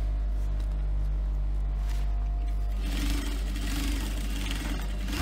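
A steady electric hum, then about three seconds in a sewing machine starts stitching a seam through layers of fabric and runs on to the end.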